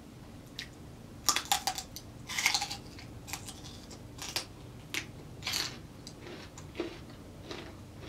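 Biting into and chewing a celery stick dipped in spicy cheese sauce, with crisp wet crunches close to the microphone. A quick cluster of loud crunches comes a second or two in, then slower, fainter chews follow.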